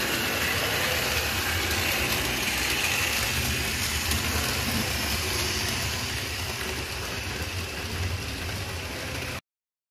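HO-scale model train (BB 25247 electric locomotive with a Bruhat coach set) running along the layout track: a steady whir and rumble of motor and wheels on the rails. It grows a little quieter over the last few seconds, then cuts off abruptly about nine seconds in.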